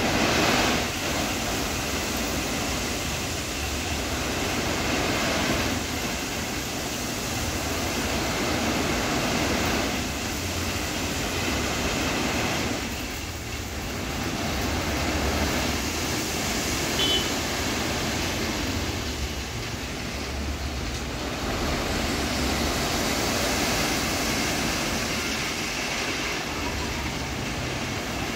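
Crushed stone sliding and pouring out of the raised steel dump body of a Tata 16-wheeler tipper truck as it unloads, a continuous rushing rumble that swells and eases every few seconds, over the truck's engine running.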